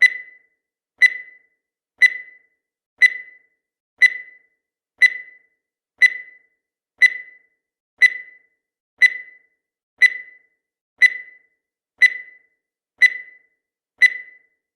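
Countdown timer sound effect: a short high-pitched beep once every second, each fading out quickly, about fifteen in a row.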